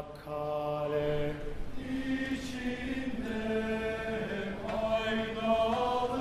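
Singing of a slow Turkish folk song (türkü), with long drawn-out notes that step to a new pitch every second or two.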